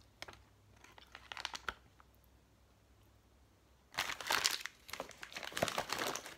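Plastic MRE packaging being handled and crinkled: a few light clicks in the first two seconds, a quiet spell, then dense crinkling and rustling from about four seconds in.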